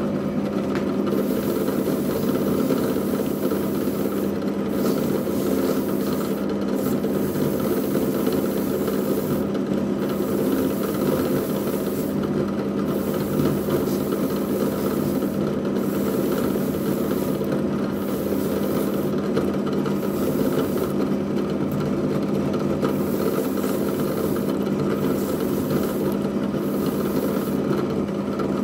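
Bench drill press motor running steadily with a hum, spinning a cut-off toilet-brush head that polishes an oiled wooden tool handle; the hiss of bristles on the wood drops out briefly every two or three seconds.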